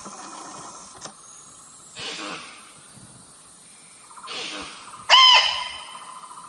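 Female rusa deer call used as a hunting lure: one loud, high-pitched bleat about five seconds in, with breathy hissing exhalations coming roughly every two seconds. A steady insect trill runs underneath.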